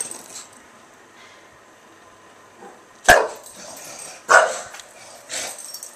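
English bulldog barking: three sharp barks about a second apart in the second half, the last one weaker.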